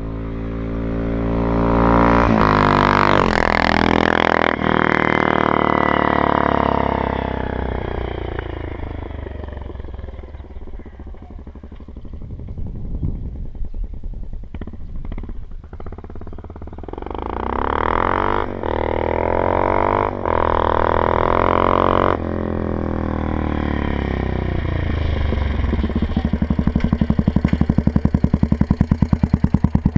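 Suzuki Savage LS650's single-cylinder four-stroke engine, breathing through a Harley-Davidson carburettor and a Raask aftermarket exhaust, revving up hard twice with brief breaks that sound like gear changes, easing off in between. It ends in a slow, even beat at low revs.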